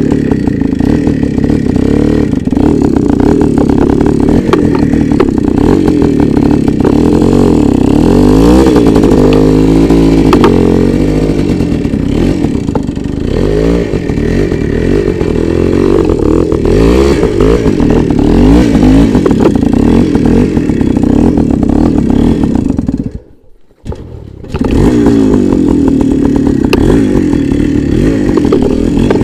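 Voskhod 3M-01 motorcycle's single-cylinder two-stroke engine revving under load through mud and water, its pitch rising and falling with the throttle. The sound drops out for about a second a little past two-thirds of the way through, then the engine is heard again.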